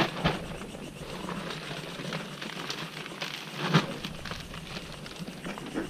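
Rustling and crackling in dry leaf litter and brush, with a few sharp clicks and snaps, the loudest just under four seconds in.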